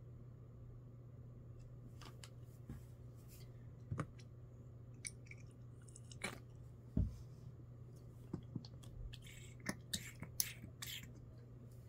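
Scattered soft clicks, taps and scrapes of a small plastic toy spoon and bottle against a Baby Alive doll's hard plastic mouth, over a faint steady low hum.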